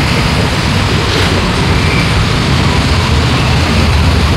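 City street traffic noise: passing cars and motorbikes, a steady low rumble.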